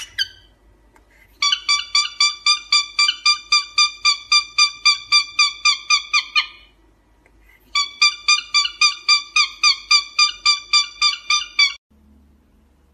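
Cockatiel calling in a rapid run of short, pitched notes, about five a second, in two bouts of several seconds each.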